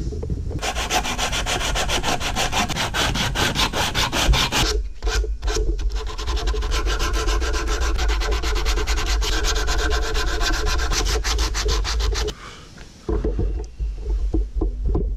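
Sandpaper worked by hand over Morado hardwood, sanding down the top of an axe handle so the axe head's eye will fit over it. Quick back-and-forth strokes come in two long runs with a short break between, then a few stray strokes near the end.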